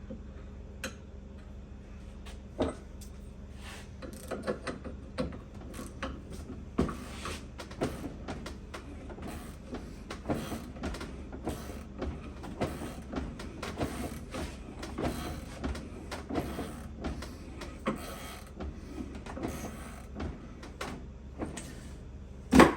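Irregular metal clicks, creaks and knocks from a shop press working a control-arm bushing back to round, over a low steady shop hum. A louder knock comes near the end.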